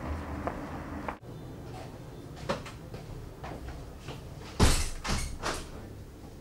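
Footsteps knocking on a hard floor, then a door banging shut with a few quick knocks about four and a half seconds in, the loudest sound.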